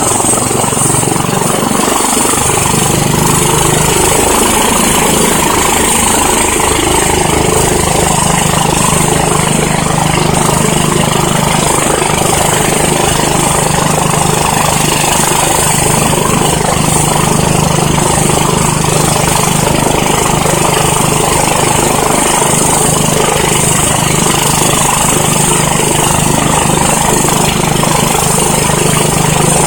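EC-145 helicopter's twin turboshaft engines running on the ground with the main rotor turning: a steady high turbine whine over a fast, even rotor beat. A low hum shifts during the first few seconds, then holds steady.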